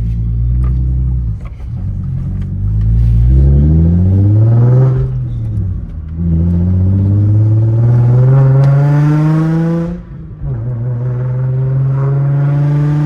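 Nissan 350Z's 3.5-litre V6 accelerating through the gears, its loud exhaust note rising in pitch with each gear and dropping briefly at upshifts about 1.5, 6 and 10 seconds in.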